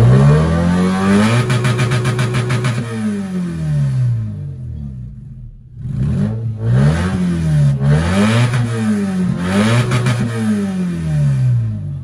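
Car engine revved in place through an exhaust with an electric cut-out valve opened for a straight-pipe sound, heard from inside the cabin. It gives one long rev, held about two seconds with a rattly rasp, then drops back and gives three quick throttle blips.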